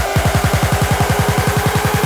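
Electronic dance track building up: a rapid run of deep, downward-sweeping bass hits that speeds up, under a steady held note.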